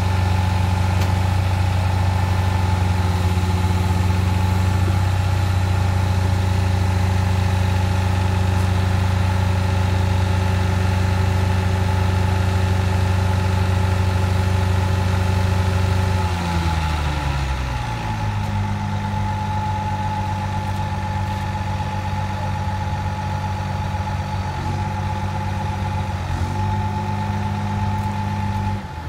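Tigercat tracked feller buncher's diesel engine running steadily at raised speed. It winds down to a lower idle about sixteen seconds in, then cuts off right at the end.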